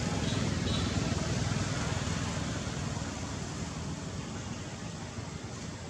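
Steady rumble of a passing motor vehicle's engine and road noise, fading gradually as it moves away.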